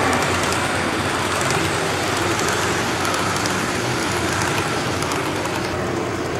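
HO-scale model passenger train running past close by: a steady rattle of small metal wheels on the rails, with fine clicks over the track. The sound thins out about six seconds in.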